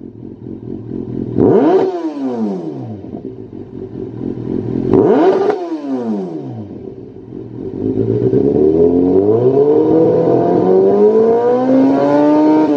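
Kawasaki Z800's inline-four engine revved through a Lextek OP1 aftermarket silencer. It gives two quick blips of the throttle, a little over a second in and about five seconds in, each falling back toward idle. Then the revs climb slowly and are held high until the throttle closes at the very end.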